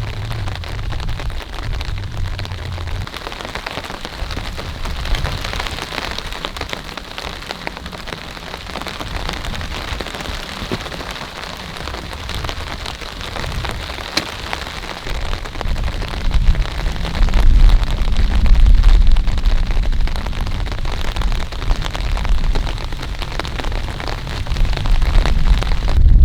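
Heavy rain falling steadily, a dense patter of drops. A deep low rumble comes in at the start and swells up loudly in the second half.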